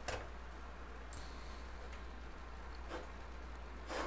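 A few faint computer mouse clicks spread out over a low steady hum.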